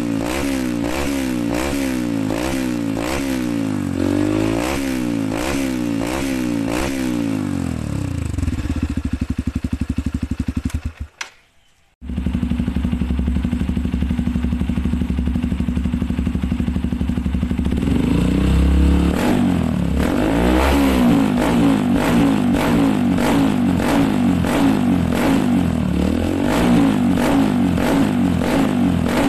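Honda dirt bike engine through a BY-S47 aftermarket racing muffler, blipped repeatedly so the revs rise and fall in quick cycles, then settling back. After a short break about 11 seconds in, another motorcycle with a BY-S47 racing muffler idles, then is blipped repeatedly from about 18 seconds in.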